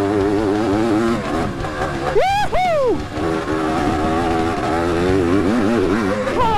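1971 Suzuki TM400 Cyclone's single-cylinder two-stroke engine running hard under load, its pitch wavering with the throttle. The revs shoot up and drop back twice in quick succession about two seconds in.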